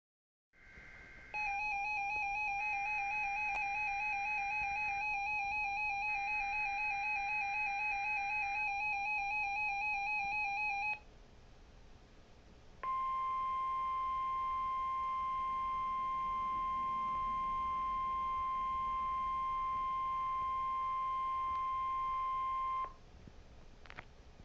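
NOAA Weather Radio Required Weekly Test signal. Three short screeching digital header bursts sound over a continuous warbling tone. After a pause comes the steady 1050 Hz warning alarm tone, held for about ten seconds before it cuts off sharply, followed by a click.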